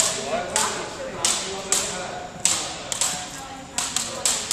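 Two double dutch ropes, which look beaded, slapping a wooden gym floor in a steady alternating rhythm, about two sharp slaps a second. Voices chatter faintly underneath.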